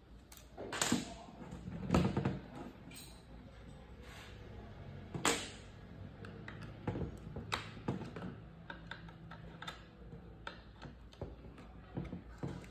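Handling noise of an airsoft gas-blowback rifle: scattered sharp knocks and clicks over a low steady hum, the loudest about one, two and five seconds in.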